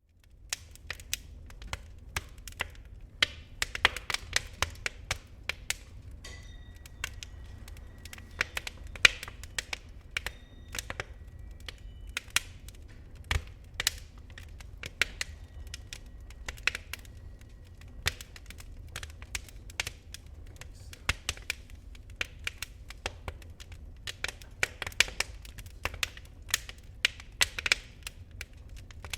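Wood fire in a fireplace burning low on glowing embers, crackling with irregular sharp pops over a low steady rumble.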